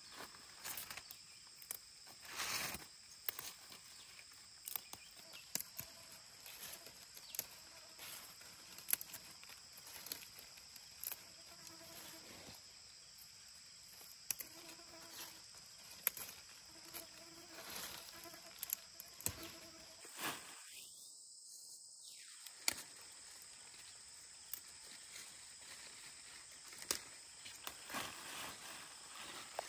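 Insects chirring steadily in the background, with scattered faint clicks and knocks.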